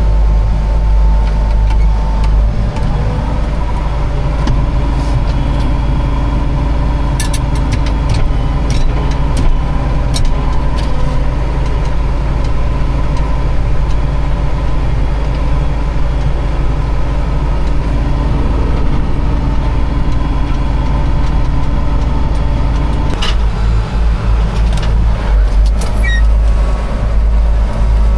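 Tractor engine running steadily, with a strong low rumble and a few short clicks and knocks; the rumble changes about 23 seconds in.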